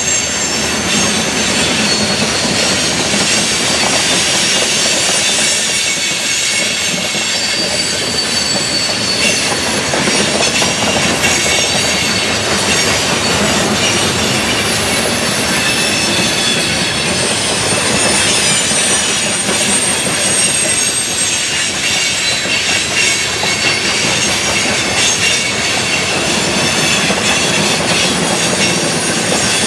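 Freight train of open-top hopper cars rolling past close by: a steady, loud rolling rumble of steel wheels on rail, with high-pitched wheel squeals whining and drifting in pitch over it.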